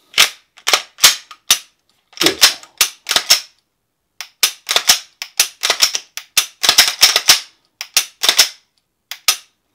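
Glock 17 pistol being handled and reassembled: a quick series of sharp clicks and clacks of the slide and polymer frame and their metal parts, in several bunches with short pauses between.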